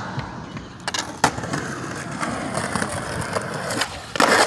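Skateboard on a concrete sidewalk: a few sharp clacks about a second in, wheels rolling, then a loud clattering scrape of the board near the end during a tre flip attempt.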